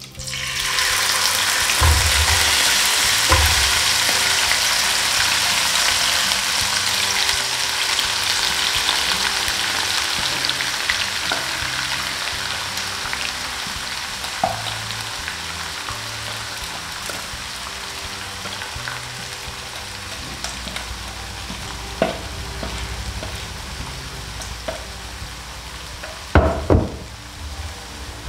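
Food frying in hot oil in a pan: the sizzle starts suddenly and loud, then slowly dies down. It is stirred, with occasional light utensil clicks and a few louder knocks near the end.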